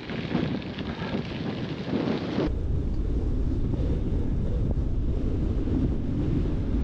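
Wind buffeting the microphone of a camera on a moving bicycle. The sound is a steady rush that turns abruptly into a heavier, deeper rumble about two and a half seconds in.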